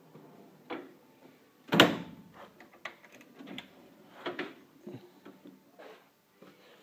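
Tools being handled in a drawer of a steel tool cabinet: a string of irregular knocks and clunks, the loudest about two seconds in.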